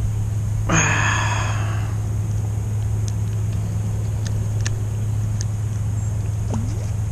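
Steady low motor hum, with a brief harsh call about a second in and a few faint clicks.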